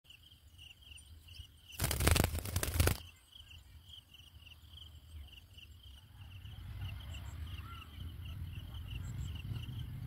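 An insect chirping in a quick, even pulse of short high chirps, about three or four a second. A loud burst of noise cuts across it for about a second near the two-second mark, and a low rumble grows in the second half.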